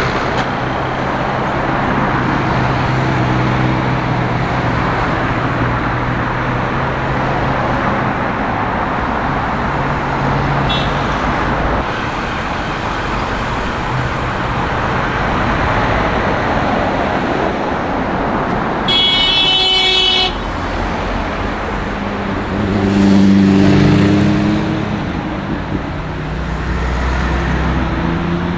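Street traffic: cars running past steadily. A car horn sounds once, held for about a second, about two-thirds of the way in. A few seconds later a vehicle's engine grows louder as it passes close, rising in pitch.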